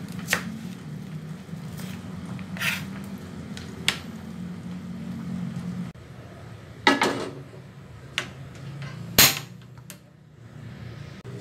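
Kitchen knife cutting through onion slices, a few sharp knocks on the cutting board. Then a portable gas stove's ignition knob clicking a few times, the loudest click about nine seconds in as the burner lights.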